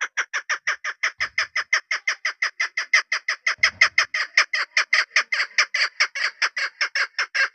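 Female chukar partridge calling in a rapid, even series of short chuk notes, about six a second.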